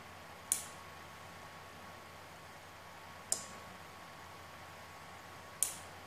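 Relay on an Arduino relay module clicking three times, about two and a half seconds apart, as it switches a light bulb on and off. A faint steady hum runs underneath.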